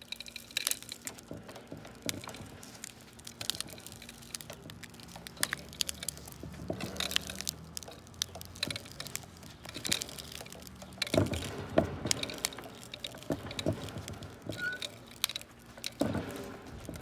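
Samsung Galaxy S7 phone being crushed in a vise: irregular cracking and crunching as its glass and plastic give way. The loudest cracks come in a cluster about eleven seconds in, with more near the end.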